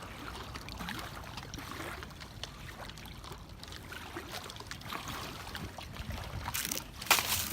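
Small waves lapping and trickling along the flooded lakeshore, with loud rushing bursts of noise on the microphone near the end.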